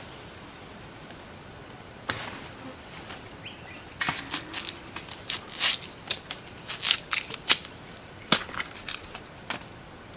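Dry plant material cracking and snapping: one sharp snap about two seconds in, then from about four seconds in a quick, irregular run of sharp cracks that dies away near the end.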